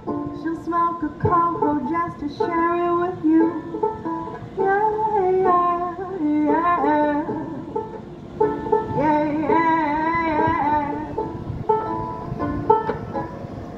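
A banjolele (banjo-ukulele) being picked and strummed in a folk song, with a woman's voice singing over it in several phrases.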